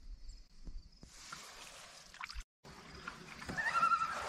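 Water trickling and dripping around a canoe, with a bird calling in clear held whistled notes near the end.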